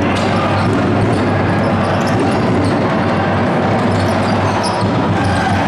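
Sound of a men's basketball game in a sports hall: the ball bouncing on the court and short high squeaks over a steady, loud din of spectators.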